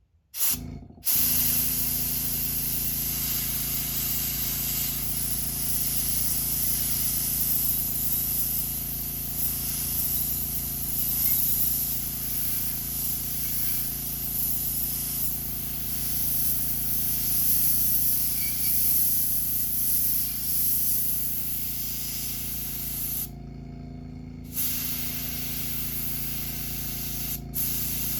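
Airbrush spraying paint with a steady hiss over a steady low hum. The spray stops for about a second near the end, and again for an instant just before the end, while the hum carries on.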